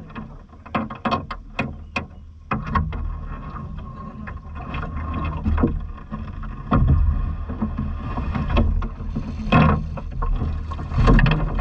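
Cast net being hauled in by its rope from a small boat: water lapping and wind buffeting the microphone, with scattered knocks and clatters of handling. Near the end come short splashes and dripping as the net is lifted out of the water.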